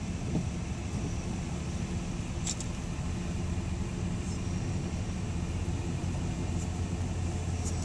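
Car running slowly, heard from inside the cabin: a steady low engine and road rumble, with a few faint clicks.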